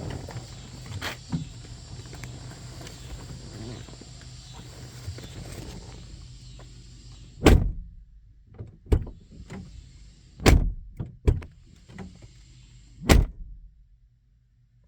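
The door of a 2015 Dodge Durango swung and shut on its newly fitted hinge to check its alignment: a few small clicks, then about five sharp door thunks in the second half, three of them loud and spread over several seconds.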